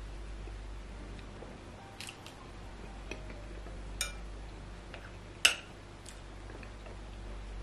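Metal spoon clicking against a glass bowl, three sharp clinks about two, four and five and a half seconds in, the last the loudest, with a few fainter ticks between. Soft chewing of yam and pepper soup runs underneath, over a steady low hum.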